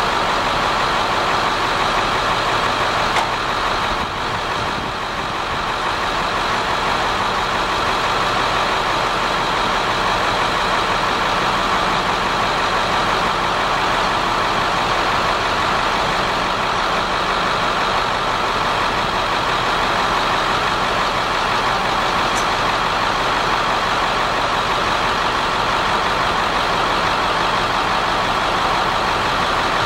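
Caterpillar 3126 diesel engine of a 2000 Ford F650 bucket truck running steadily, powering the boom's hydraulics.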